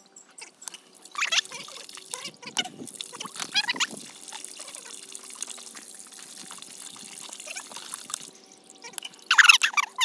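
Garden pond fountain running, water splashing and trickling down the stone fountain into the pond. A few short, loud animal calls break in, the loudest near the end.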